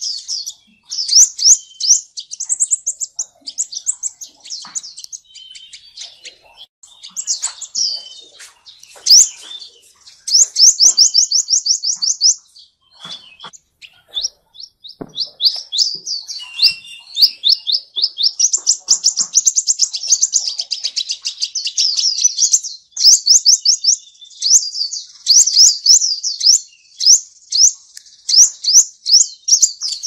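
Sunbird song: fast trills of high, thin notes, each a quick sweep, in runs of a second or two with short gaps, and one longer unbroken run about two-thirds of the way through.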